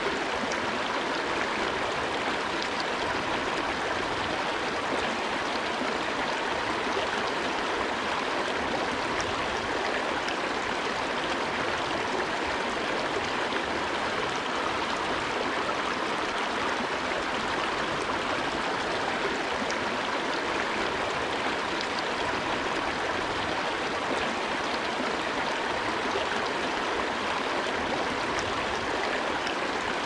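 Mountain creek water running steadily over rocks: an even, unbroken rush.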